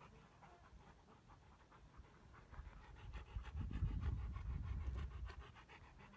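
Wind buffeting the microphone: a low rumble swells about two and a half seconds in and fades before the end, over a faint scratchy crackle.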